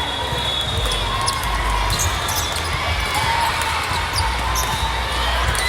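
Volleyballs hitting and bouncing on a gym court, with short squeaks of sneakers on the floor.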